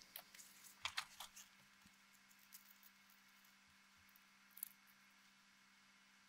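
Near silence, with a few faint small clicks of fingers handling a cassette-deck idler pulley while a new rubber idler tire is worked onto it.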